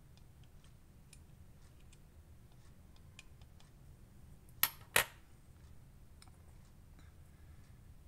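Faint ticks of a small precision screwdriver and tiny metal parts being handled on a disassembled OTF knife, with two sharp clicks close together a little past halfway.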